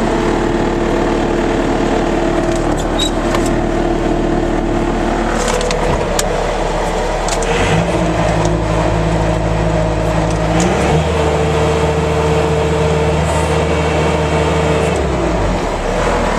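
Kubota turbocharged diesel engine of a 2005 Bobcat S300 skid steer loader running just after a key start: idling, then throttled up in two steps, about eight and about eleven seconds in, and dropping back to idle near the end.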